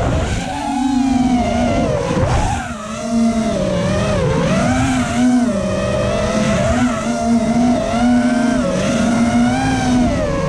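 FPV racing quadcopter's brushless motors and propellers whining. The pitch rises and falls continually as the throttle changes through the gates.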